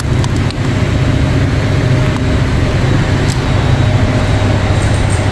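Steady low machine hum of a warehouse store's refrigerated produce area, its cooling and ventilation fans running without change. A few light crinkles of a plastic bag of grapes being handled in the first second.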